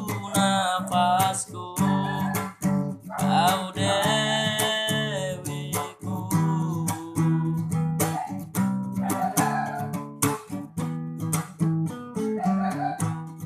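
Acoustic guitar strummed in a steady rhythm while a voice sings phrases over it.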